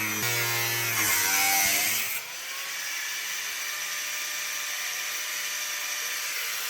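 Corded power tool cutting sheet metal on the car's floor, its motor pitch rising before it cuts off sharply about two seconds in. After that there is only a steady low hum.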